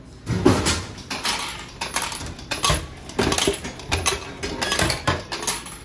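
Canned-drink vending machine dispensing a can of beer after the button press: a run of irregular metallic clunks and clatters as the can drops through the machine and lands in the dispensing tray.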